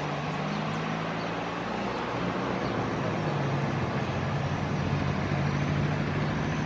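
Airbus A320 jet engines running at low taxi power as the airliner rolls slowly on the runway: a steady low hum under a broad hiss.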